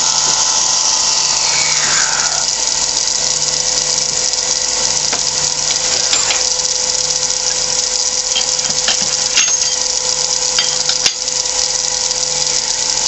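Wood lathe running steadily with a small hard maple blank spinning, a constant mechanical hum. In the first couple of seconds a drill bit is backed out of the freshly bored hole, with a falling scraping sweep. A few light clicks and ticks follow in the second half.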